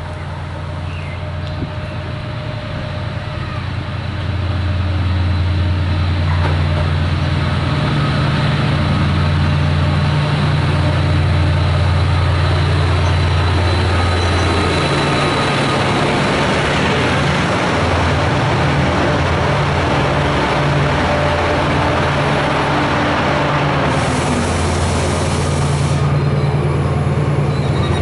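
Class 68 diesel-electric locomotive, with a Caterpillar V16 engine, approaching and running in alongside the platform. Its low engine drone and wheel-on-rail noise grow louder about four seconds in, then stay loud and steady as it passes close.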